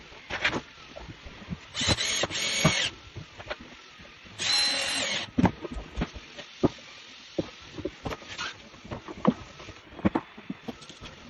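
Two short runs of a small handheld power tool, each about a second long, about two and four and a half seconds in, amid scattered knocks and taps of work on old wooden floorboards.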